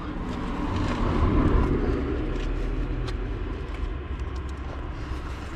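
A rag rubbing and dabbing around the open thermostat housing of a KV6 engine, close to the mic, with faint ticks over a steady low rumble.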